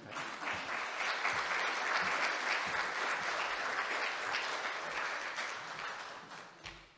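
Audience applauding, rising quickly at the start and dying away near the end.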